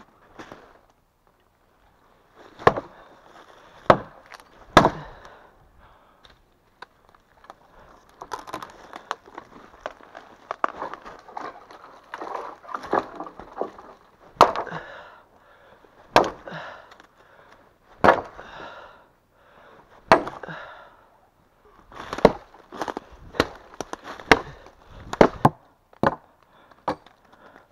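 Axe chopping into wood: sharp strikes, irregularly spaced a second or two apart, with rustling and scraping between them.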